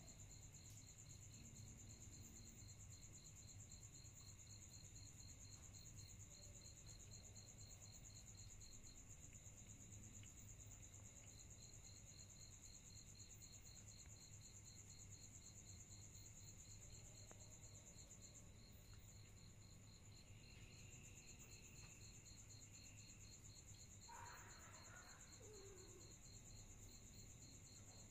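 Faint insects trilling steadily, crickets at two different pitches, over a low steady hum. About 24 seconds in, a short call falls in pitch.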